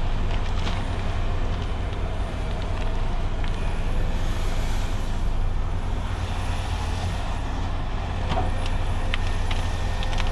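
Cat 568 shovel logger's diesel engine running steadily under work, with a faint high whine and a few light clicks in the second half.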